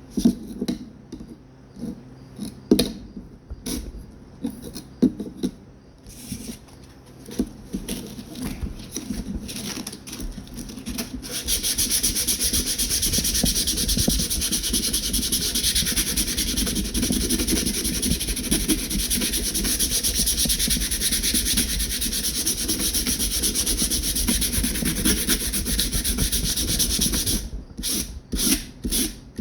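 Coarse 60-grit sandpaper worked by hand over knife handle scales, roughening them with deep scratches for epoxy. Separate scrubbing strokes for about the first ten seconds, then a long run of fast, continuous back-and-forth strokes, and separate strokes again near the end.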